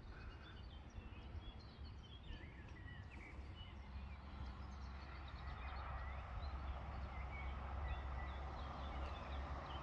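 Faint outdoor ambience: scattered short chirps of small birds, over a low rumble that grows somewhat louder a few seconds in.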